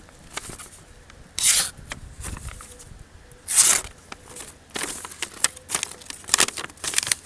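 A freshly sharpened knife blade slicing through paper to test its edge: a couple of long swishing cuts, then a run of shorter crackling cuts and rustles.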